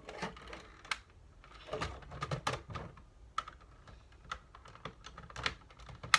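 Irregular light plastic clicks and rattles as the parts of a Nerf blaster's plastic shell are handled and pried apart.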